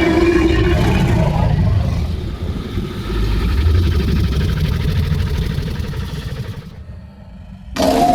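Designed monster growl sound effect, slow and low: a throaty growl that settles into a deep rumble and fades away about seven seconds in. A new growl starts sharply near the end.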